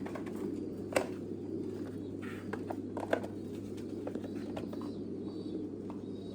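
Many domestic pigeons cooing together in a steady low murmur, with a few sharp clicks, the loudest about a second in and another about three seconds in.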